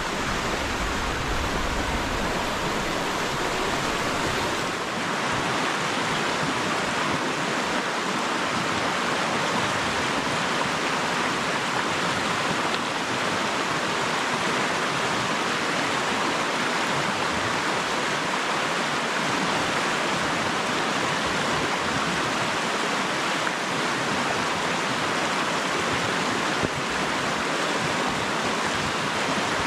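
River water rushing, a steady loud hiss of moving water.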